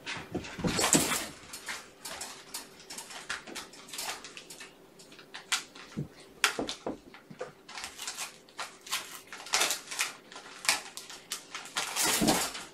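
Kittens scrambling about, with a kitten climbing over a wire-and-plastic pen divider: a run of irregular clicks, scrapes and rattles of claws on wire and plastic. There are louder rustling bursts about a second in and again near the end.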